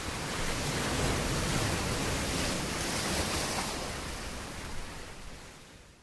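Sea waves: a steady rush of surf that swells slightly a second or so in, then fades away toward the end.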